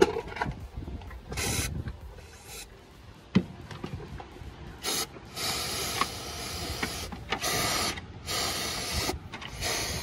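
Aerosol spray can with a straw nozzle hissing in a run of bursts, several short ones and one of about two seconds, with a single sharp click between them.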